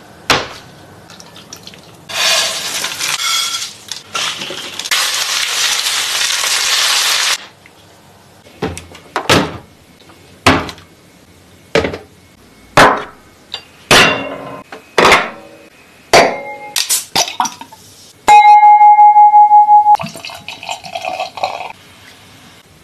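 Dishes and tableware clinking and knocking, about a dozen separate sharp hits, after a hiss of several seconds. Near the end a loud steady tone pulses rapidly for about two seconds.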